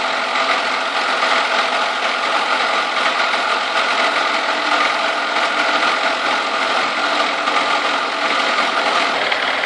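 Chevrolet Niva's four-cylinder petrol engine idling cold, just under 30 °C coolant, with a steady rapid knocking running through the idle. The owner cannot say what is knocking.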